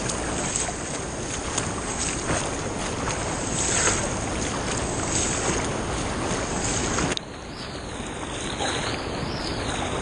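Churning whitewater below waterfalls rushing steadily, with a few brief splashes, picked up close to the surface. About seven seconds in the sound suddenly drops and turns duller.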